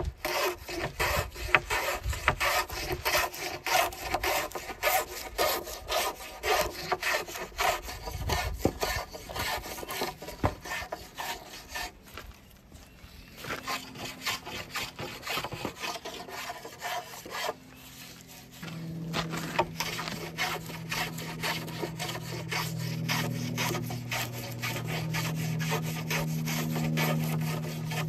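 Metal bench hand plane taking repeated rasping strokes along a round wooden oar shaft, peeling off curled shavings as the end is tapered down to fit the hand. A steady low hum joins in about halfway through.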